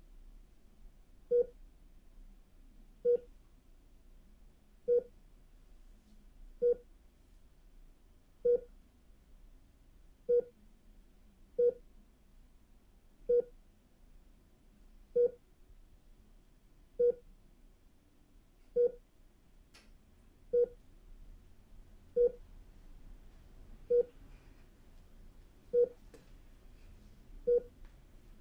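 Bedside heart monitor beeping with each heartbeat: short, mid-pitched beeps about once every two seconds, a slow, steady pulse, over a faint low room hum.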